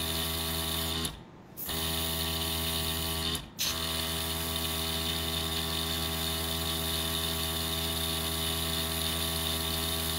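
Small airbrush compressor running with a steady hum while air hisses from the airbrush, spraying pink paint for a colour gradient. It cuts out twice, briefly: about a second in for half a second, and again just after three and a half seconds.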